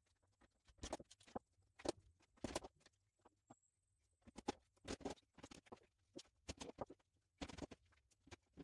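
Thin cedar strips clicking and tapping against each other and the wooden workbench as they are laid out and pressed together at their half-lap joints, in irregular clusters of short, light knocks.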